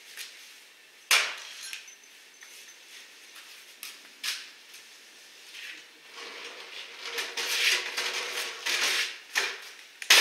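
Metal tools and parts clinking and knocking as they are handled: a sharp knock about a second in, another near four seconds, then a busier run of clatter in the second half.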